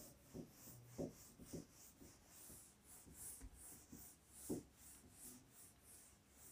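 Whiteboard duster rubbing across a whiteboard in quick repeated wiping strokes, about two or three a second, faint, with a few soft knocks along the way.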